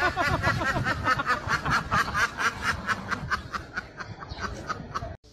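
A duck quacking in a fast, laugh-like run of short calls, about four a second, fading near the end and cut off suddenly.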